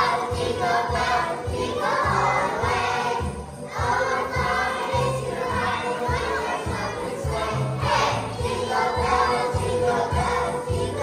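A group of preschool children singing together along to a recorded holiday song with a steady beat.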